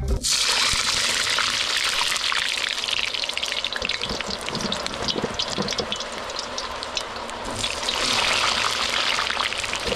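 Potatoes deep-frying in hot oil: a steady sizzle full of small crackles and pops, louder in the first two seconds and again near the end.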